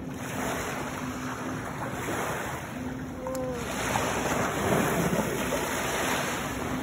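Small lake waves lapping and washing onto a sandy shore, with wind on the microphone, a little louder in the second half.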